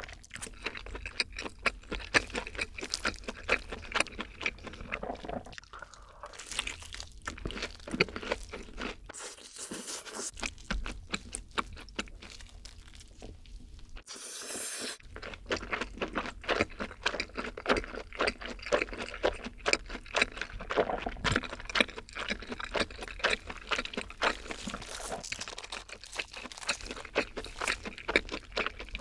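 Close-miked eating of a long breaded fried cheese stick: the crisp crust crunches under the bites and the stretchy melted cheese is chewed. The crunching is dense and continuous, easing into quieter chewing for a few seconds in the middle.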